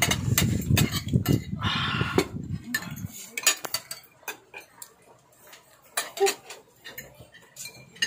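Metal forks and spoons clinking and scraping against ceramic plates and serving dishes as people eat, with scattered sharp clinks. A low rumble runs under the first three seconds and then stops.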